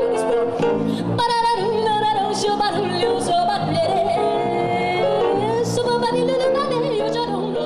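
Live jazz performance: a woman singing long, held notes, accompanied by electric bass and piano.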